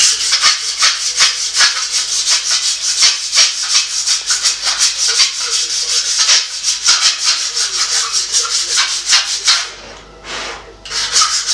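Hand wire brush scrubbed rapidly back and forth along a long forged steel blade on the anvil, about five or six strokes a second. The strokes stop for about a second near the end, then start again.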